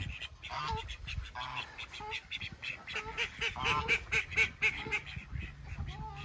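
A flock of ducks and geese calling: many short quacks and honks in quick succession, overlapping.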